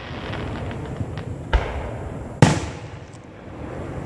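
Aerial firework shells bursting: a bang about a second and a half in, then a louder, sharper bang about a second later, each trailing off. Faint crackling runs through the first second.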